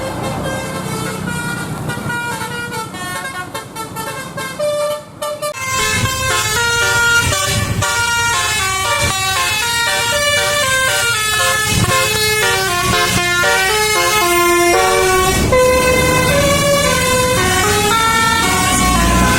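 Bus telolet basuri horn, a set of air-horn trumpets run by a controller, playing a quick melody in short stepped notes over the low rumble of the bus's engine. The tune gets louder about six seconds in.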